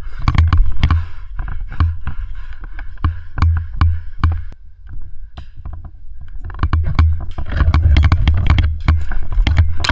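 Bumping and rumbling of movement close to a worn camera, with many irregular sharp clicks and snaps that come thicker in the last few seconds.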